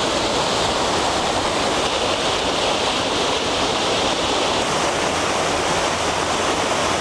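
Mountain stream rushing, a loud, steady wash of running water.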